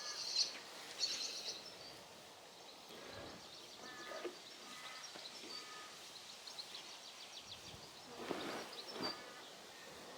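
Birds chirping in short, repeated calls over faint outdoor background noise, with a brief scratchy rustle about eight seconds in.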